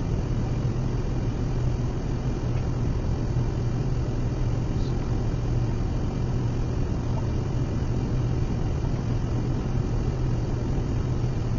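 Steady low workshop background hum, a constant rumble with no distinct events.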